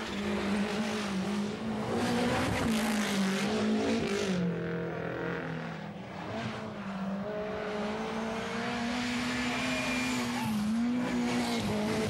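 Turbocharged four-cylinder rally cars, a Lancia Delta Integrale and a Toyota Celica GT-Four, driven flat out on a stage. The engines are revving high, with the engine note dipping briefly a few times and climbing again.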